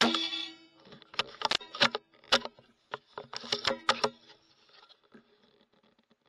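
A single .22 rimfire rifle shot with a short ringing tail. It is followed over the next three seconds by a run of sharp mechanical clicks and knocks as the rifle is handled, which then die away.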